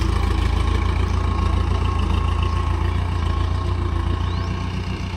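Diesel tractor engine running steadily at low revs with a low, even rumble.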